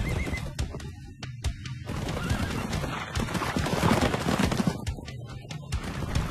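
Film soundtrack of a cavalry charge: horses galloping and whinnying, with a dense clatter of hoofbeats over background music.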